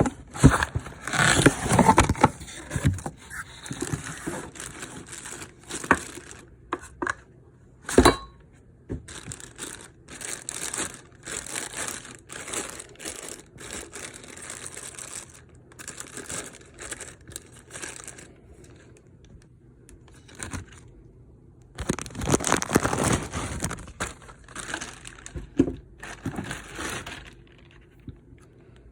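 Cardboard and plastic packaging being handled, crinkled and torn open during an unboxing, in bursts of rustling with a sharp knock about eight seconds in.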